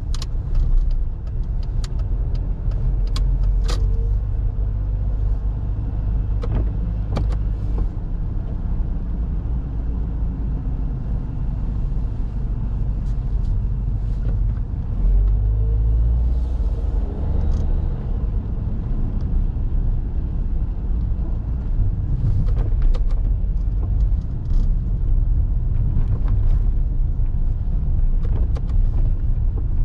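Urban street sound: a steady low rumble of road traffic, swelling for a few seconds about halfway through, with scattered sharp clicks and taps.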